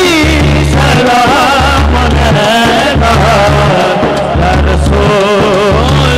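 Devotional South Asian music: a wavering, ornamented melody line over a heavy low drum beat that comes in blocks of about a second each.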